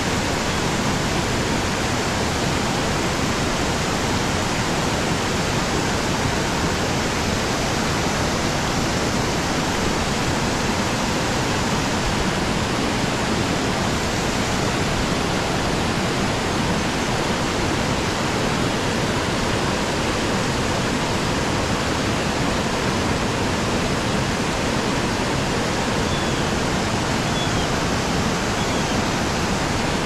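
Steady rush of flowing creek water, an even, unbroken noise.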